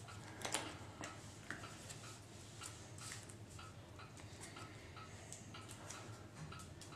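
Faint handling of trading cards: cards picked up, slid and set down on a cloth playmat, with light taps and clicks. Behind them runs a faint, regular ticking, about two ticks a second.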